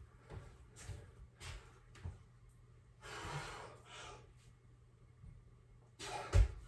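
A man's hard breathing during a single bodyweight pull-up: short sharp exhales and one longer breath about three seconds in. Near the end, a sudden loud thud, the feet hitting the floor as he drops from the wall-mounted bar.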